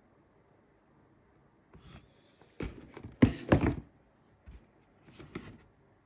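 Handling noises from boxes and product packaging: a cluster of short knocks and rustles, loudest about three seconds in, then a softer pair near the end.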